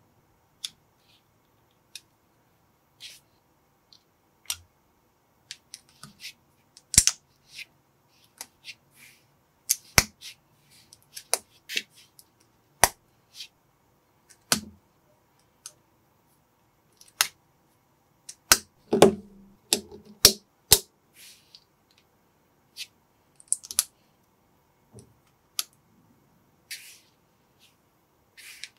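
Small plastic building bricks clicking and snapping together as pieces are pressed onto each other by hand: irregular sharp clicks, with a quick flurry of them about two-thirds of the way through.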